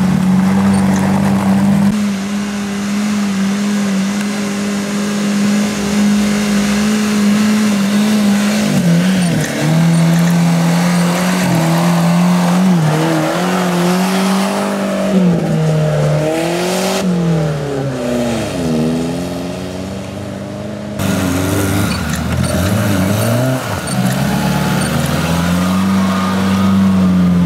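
Suzuki Samurai 4x4 engines running under load off-road: one engine held at a steady pitch for several seconds, then revving up and down repeatedly as the jeeps drive through the mud, with the engine note changing abruptly several times.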